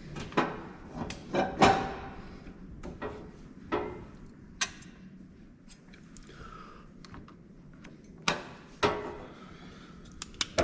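Irregular knocks and metal clinks from hand tools and metal parts being handled, a few of them ringing briefly.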